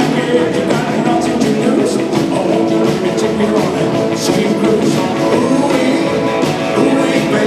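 Fifties-style rock and roll music played by a band with electric guitar and a singer, steady and loud.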